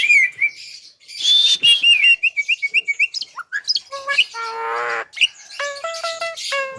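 Javan myna (jalak kebo) singing a varied run: quick whistled notes and chirps, a harsh rasping call about four seconds in, then a string of short repeated notes near the end.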